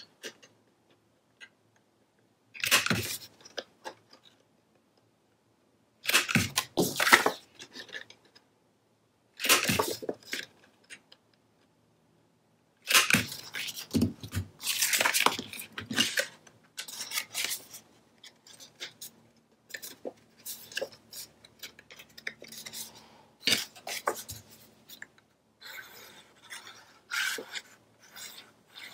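A handheld corner chopper punch cutting patterned cardstock: three or four separate crisp crunches with quiet gaps between. From about halfway, near-continuous rustling and scraping of paper and card being handled on a cutting mat.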